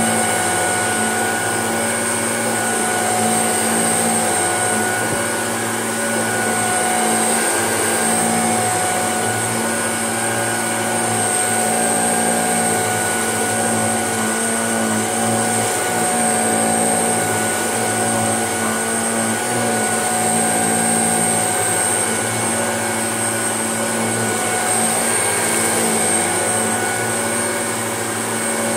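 Shark upright vacuum cleaner running steadily, with a constant motor whine, as it is pushed back and forth over a carpet mat.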